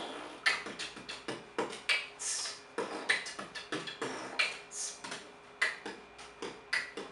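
Juggling balls landing in the hands in a four-ball synchronous inside fountain: a quick, even rhythm of slaps as each catch is made.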